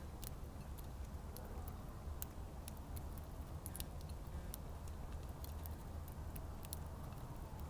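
Irregular light clicks and taps of small birds pecking and cracking seed at a feeder, over a steady low rumble.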